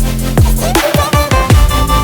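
Background music: an instrumental stretch of an electronic pop song with heavy kick drums that drop in pitch. A held bass note cuts out about three-quarters of a second in, and faster drum hits and a high melody line follow.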